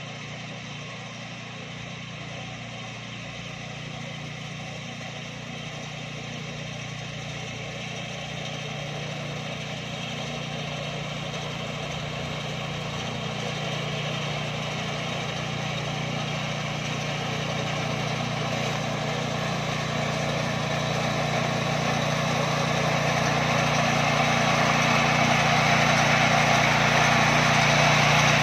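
BCS 730 walk-behind tractor with a front reaper bar running steadily while cutting standing wheat, its small engine and cutter bar growing steadily louder as the machine comes closer.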